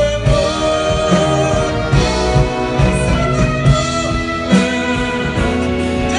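Live big band with saxophones playing a ballad behind a male singer with a microphone, amplified through the hall's sound system.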